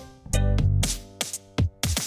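Electronic background music with a heavy bass hit about half a second in, sharp drum hits and short melodic synth notes.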